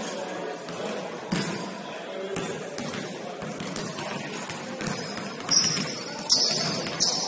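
A basketball bouncing on a gym floor, sounding as irregular sharp thuds that echo in a large hall. Short high squeaks come in over the last two seconds.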